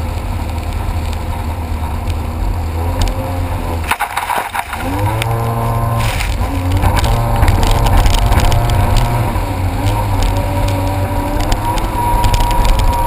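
Jet ski engine running under way. The throttle drops off briefly about four seconds in, then the engine revs back up, its pitch rising and falling with the throttle.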